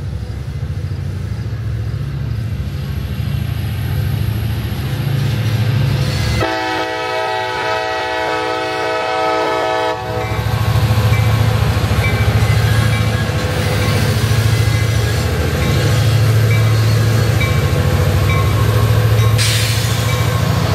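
Lake State Railway diesel-electric locomotives running with a steady low engine rumble as they pass slowly. About six seconds in, the lead locomotive's multi-chime air horn sounds one steady chord for about three and a half seconds.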